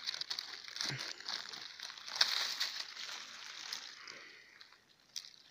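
Dry leaves, grass and bracken crackling and rustling as a hand works a porcino mushroom loose from the forest floor and pulls it up. The rustling dies away about four seconds in, and a single click follows near the end.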